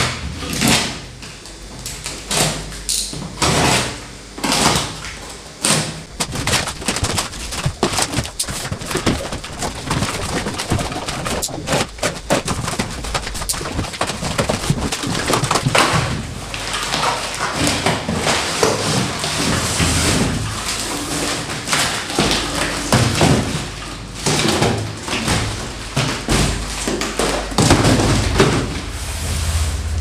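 A large cardboard shipping carton being cut and torn open: a blade scraping along packing tape, tape and cardboard ripping, and repeated knocks and thumps as the box flaps are wrenched apart. The packing tape is stuck fast and takes a long struggle to pull off.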